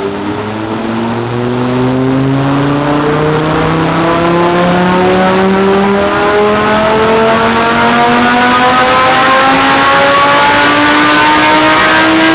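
Audi R8's V10 engine with a titanium exhaust pulling at full load on a chassis dyno, its note climbing steadily in pitch and getting louder as the revs rise through a long run.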